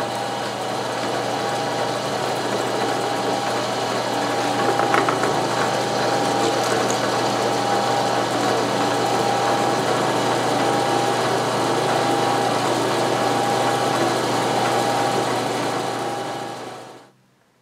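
Milling machine running, its end mill cutting a circular bore in an aluminum plate as the rotary table carries it round: a steady motor hum with a held whine over it. It is a light cut enlarging the bore by about a dozen thousandths of an inch to fit a motor, and the sound cuts off suddenly near the end.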